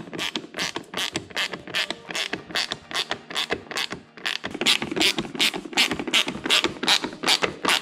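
Hand ratchet with a long extension clicking in a steady rapid rhythm, about four to five clicks a second, while it drives in a mounting screw.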